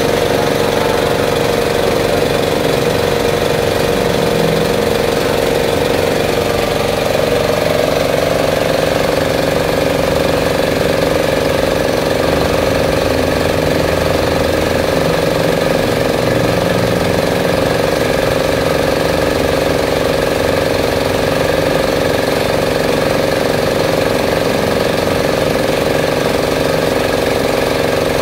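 Small petrol engine of a belt-driven workshop air compressor running steadily, its pitch rising slightly about eight seconds in.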